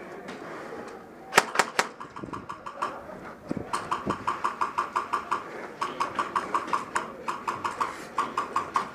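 Airsoft guns firing: three sharp cracks about a second and a half in, then a long run of rapid, evenly spaced shots, about seven a second, starting near the middle.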